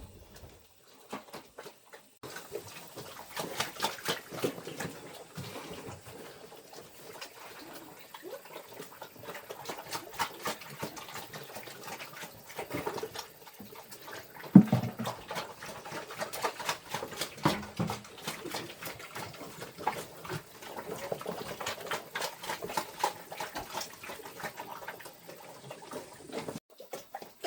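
Farm animals with many irregular clicks and rustles, and a short low sound about fifteen seconds in that is the loudest moment.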